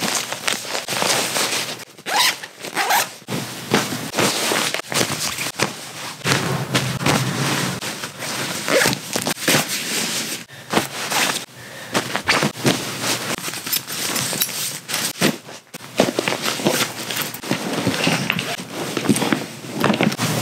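Zippers being pulled and nylon fabric rustling as clothes are packed into zippered packing cubes and a hard-shell suitcase, with many short scratchy strokes in quick succession.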